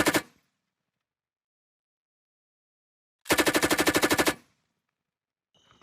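Machine gun firing in short automatic bursts, about ten rounds a second: the end of one burst right at the start, then a burst of about a dozen rounds lasting about a second, starting about three seconds in.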